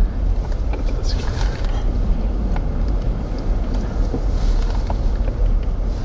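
Steady low rumble of wind buffeting the microphone, mixed with the road noise of slow-moving vehicles on a snowy street, with a few faint ticks.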